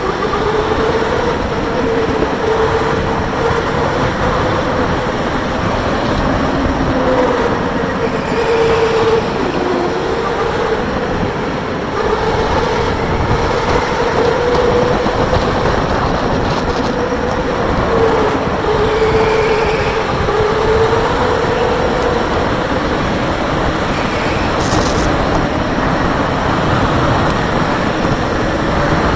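Electric go-kart motor whining from onboard while racing, its pitch rising and dipping with speed through the corners, over the steady rumble and rattle of the kart running on the track.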